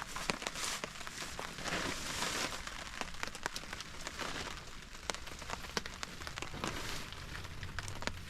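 Steady rain falling, with many individual drops striking a nearby surface as sharp, irregular ticks.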